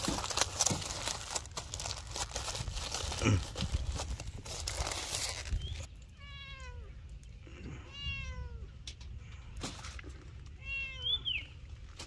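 Aluminium foil crinkling and rustling as it is pressed around a foil-wrapped package. About six seconds in, the crinkling stops and an animal calls three times, each call falling in pitch.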